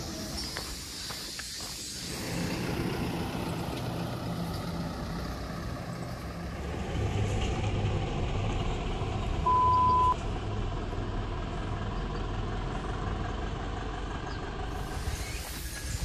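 Motor vehicle engine idling with a low, steady hum, and a single short, loud, high-pitched beep about ten seconds in.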